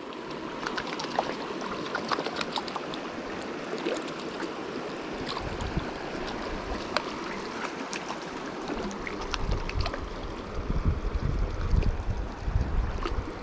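River water rushing steadily, with small ticks and splashes. From about nine seconds in, wind buffets the microphone in gusts.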